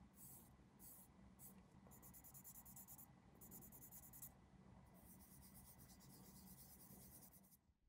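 Faint scratching on a small plastic part: a few short strokes, then longer runs of rapid rubbing that stop just before the end, typical of sanding or filing a plastic model part.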